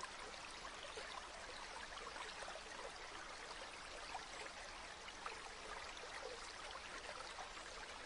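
Faint, steady sound of running water: a stream-like trickle with many small splashes.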